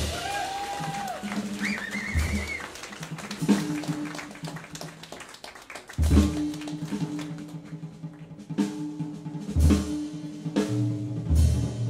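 Jazz piano trio playing live: piano, double bass and drum kit, with sharp drum accents every second or few seconds over sustained low notes.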